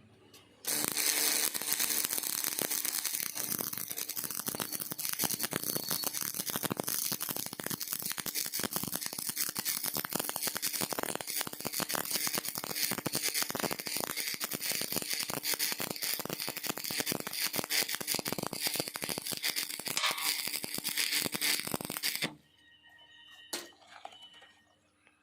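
Stick (SMAW) welding arc on a 6013 electrode running a root pass in the flat 1G position: a dense, steady crackle and sizzle. It strikes up suddenly about a second in and stops abruptly about three seconds before the end, followed by a single sharp click.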